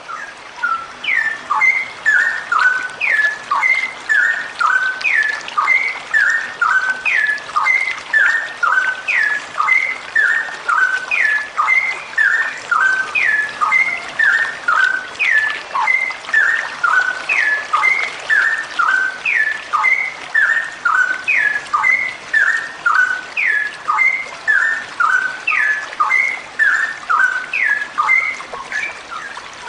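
Female straw-headed bulbul (cucak rowo) calling in a long, rapid ropel: short phrases of falling notes repeated evenly about once a second.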